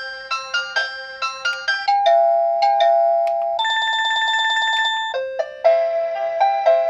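XREXS digital wall clock playing its alarm ringtones: simple electronic tunes of quick beeping notes, one tune giving way to the next. A little after halfway one ringtone is a single held warbling tone for about a second and a half, before another quick melody starts.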